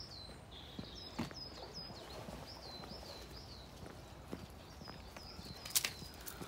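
Footsteps walking on a gravel drive, with one sharp crunch near the end. A bird sings a short high note over and over, about two or three times a second.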